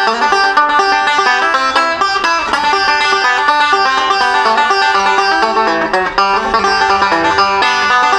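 Resonator banjo played unmuted, a fast run of bright plucked notes in a bluegrass-style tune, at its full loud volume.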